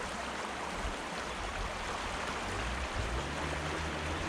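Small creek flowing over rocks: a steady rushing and burbling of water, with a low rumble underneath that grows stronger near the end.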